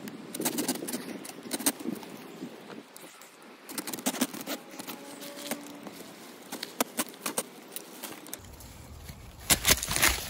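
Small folding camp saw cutting through a stalk of river cane, in uneven runs of short rasping strokes. Near the end there is a louder burst of rustling.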